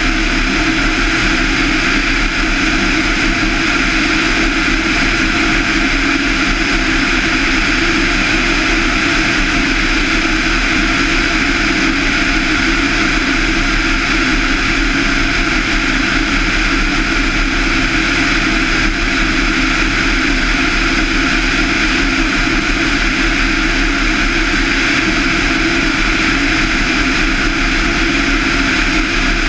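Van's RV-7's 200 hp Lycoming IO-360 four-cylinder engine and propeller droning steadily in cruise flight, with no change in power.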